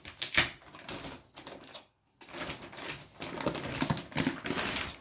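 Thin plastic wrapping rustling and crinkling as hands pull it off and away, in irregular handling strokes, with a brief break about two seconds in.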